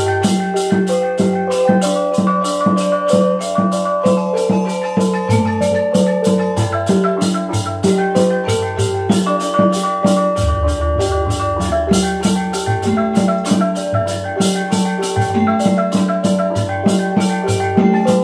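Osing gamelan playing: rows of bronze kettle gongs struck in quick, interlocking note patterns over a fast steady beat, with a barrel drum (kendang) underneath. A deep gong stroke lands about ten seconds in and rings on.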